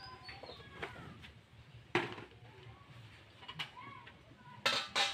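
Small birds chirping in the background, with kitchen handling noises over them: a sharp knock about two seconds in and a louder double clatter of containers near the end.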